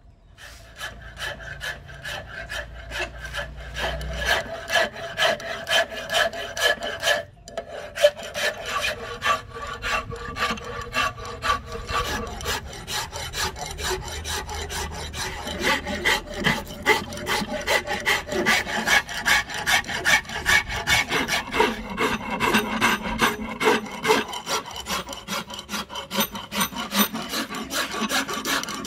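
Flat hand file rasping along a Millettia leucantha hardwood axe-handle blank held in a vise, in steady back-and-forth strokes about two a second, with a short break about seven seconds in.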